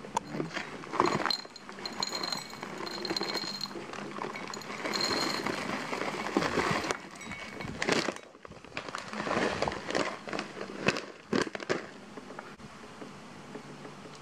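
Plastic granola pouch crinkling and granola clusters falling into a ceramic bowl, with scattered sharp clicks of pieces landing; it goes quieter after about twelve seconds.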